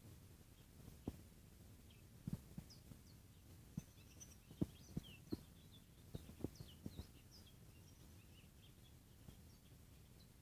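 Faint, short, high-pitched chirps from a caged bird, scattered throughout, with a number of soft knocks in the first two-thirds.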